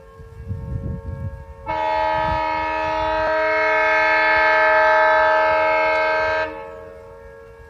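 Express train's locomotive horn sounding one long blast of about five seconds, starting about two seconds in, over the steady tone of a sugar mill's siren. The locomotive chugs low underneath at first.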